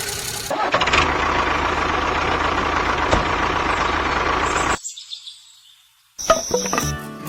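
A vehicle engine running steadily with a low hum, fading away about five seconds in. Music starts near the end.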